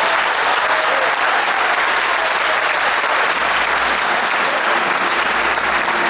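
Audience applauding, a steady, dense clapping that keeps going without a break.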